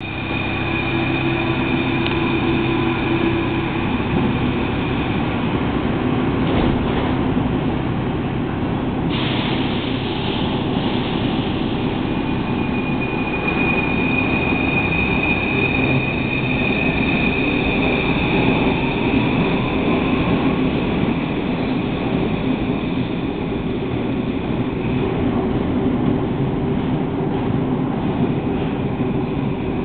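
Paris Métro MF01 train pulling out of the station and running off into the tunnel. Wheel-on-rail rumble runs throughout, with a motor whine that rises slowly in pitch midway as the train gathers speed.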